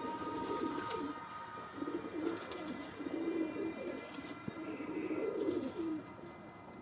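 Domestic pigeons cooing, one low warbling coo after another, over a faint steady high-pitched whine.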